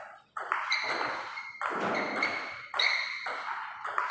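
Table tennis rally: the ball hits the paddles and bounces on the table in a quick series of sharp pings, a few each second, each ringing briefly.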